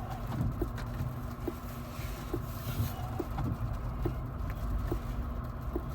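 Footsteps on snow, short soft steps about one to two a second, over a steady low rumble.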